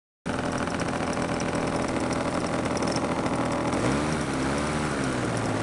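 Small two-stroke petrol engine of a radio-controlled model airplane running steadily. From about four seconds a second engine note swells up and back down in pitch over it.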